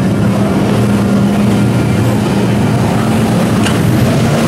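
Boat engine running at a steady pitch, a constant low hum over a wash of noise. There is a brief click about three-quarters of the way through.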